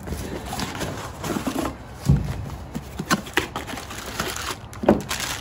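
Hands unpacking a cardboard shipping box: cardboard flaps and plastic packing rustling and crinkling, with irregular clicks and two duller thumps, about two seconds in and near the end.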